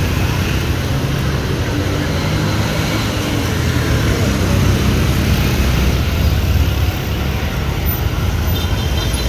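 Busy road traffic: boda-boda motorcycle taxis, cars and minibuses passing close by, a steady engine rumble that grows a little louder midway.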